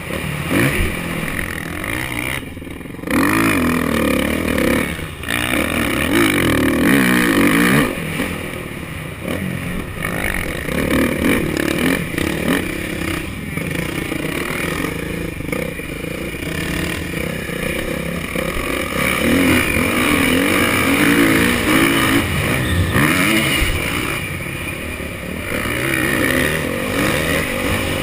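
Motocross bike engine heard close up from the rider's helmet, revving up and easing off over and over as it accelerates and slows around the track, its pitch sweeping up and down.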